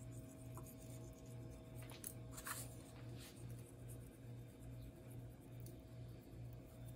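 Faint scratchy rustles of salt being pinched between the fingers and sprinkled over raw chicken pieces in metal baking pans, over a quiet low hum that pulses about twice a second.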